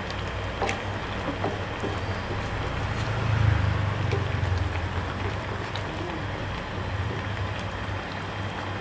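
Stove burner giving a low steady rumble under a wok of fish simmering in chili broth, swelling a little about three seconds in. A few light clicks of a wooden spatula against the wok come through.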